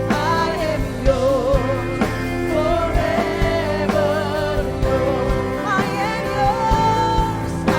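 Live worship song: a singer holding wavering notes over a band with keyboard chords and a steady drum beat.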